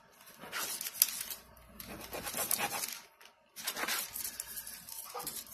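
Knife drawn through a thin sheet of mozzarella and almond-flour dough on parchment paper, three cutting strokes with the blade scraping the paper.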